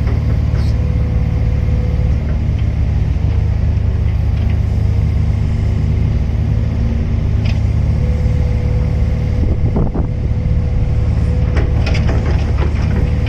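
Hydraulic excavator's diesel engine running steadily under work, with a few short knocks and scrapes late on.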